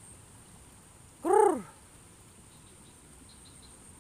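A single short hooting call about a second in, rising then falling in pitch, over a steady high-pitched insect drone.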